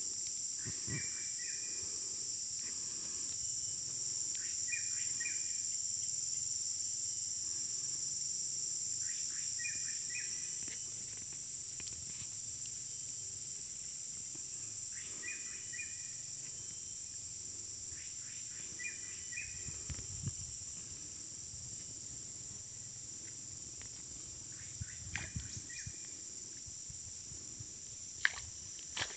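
Steady, high-pitched chorus of insects, with a short call at a lower pitch repeating about every five seconds and a few sharp clicks near the end.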